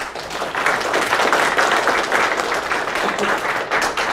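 Audience applause breaking out suddenly and going on steadily, many people clapping together.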